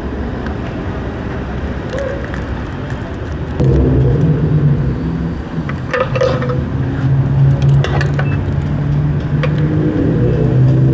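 Motorcycle engine running under way, with a steady noise of the ride beneath it. About three and a half seconds in the engine gets louder and holds a steady note, and its pitch rises near the end.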